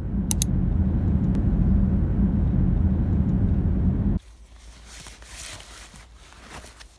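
Steady low rumble of road and engine noise heard from a moving car, cutting off suddenly about four seconds in. After it comes soft, irregular rustling of cloth and a fabric bag being handled.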